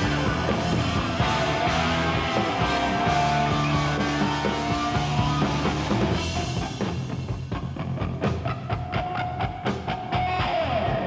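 Hard rock band playing live: electric guitar holding long notes over bass and drums. Drum strikes come through more sharply about six seconds in, and a held guitar note wavers and bends near the end.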